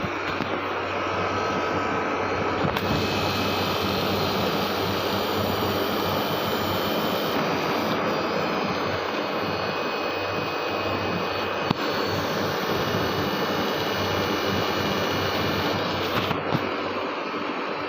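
Window air conditioner running steadily, its fan blowing with a low compressor hum, while its newly fitted compressor is charged with R22 gas. A single brief click about two-thirds of the way through.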